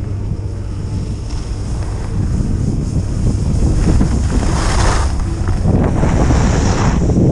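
Wind rushing over the microphone during a downhill ski run, with the hiss and scrape of skis on packed snow, in surges that grow louder from about halfway through.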